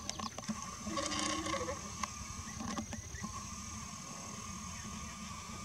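Insects trilling steadily over a low rumble. About a second in there is a brief pitched sound, followed by a few sharp clicks.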